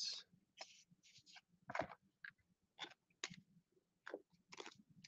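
Faint, irregular clicks and rustles of trading cards being handled in plastic sleeves and rigid plastic toploaders.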